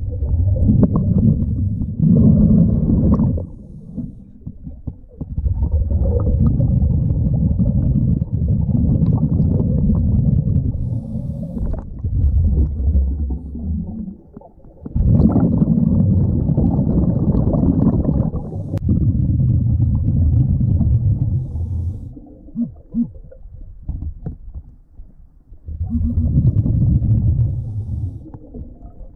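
Underwater sound of a scuba diver's breathing: long stretches of low, bubbling exhaust from the regulator, broken by short quieter pauses between breaths.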